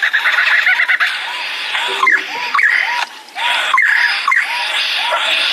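A bird calling in a rapid run of short repeated notes, with quick rising whistled sweeps over them, broken by a brief pause about three seconds in.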